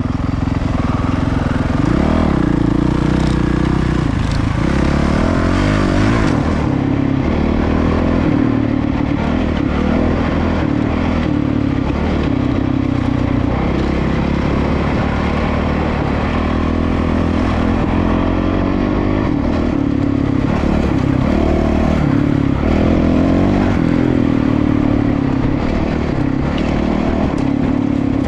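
Dirt bike engines on a rocky hardpack trail, the nearest engine's note rising and falling with throttle and gear changes, over a noise of rolling tyres, stones and chassis clatter. The rider ahead is on a Honda CRF450RL with a single-cylinder four-stroke engine.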